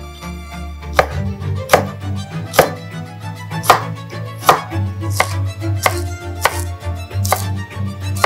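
Chef's knife slicing garlic cloves on a bamboo cutting board: about nine separate knife strikes, roughly one every three-quarters of a second, starting about a second in, over background music.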